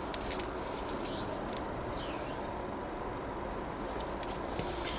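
Light clicks and taps of small things being handled at a workbench, over a steady background hiss, with a couple of faint high chirps about one and two seconds in.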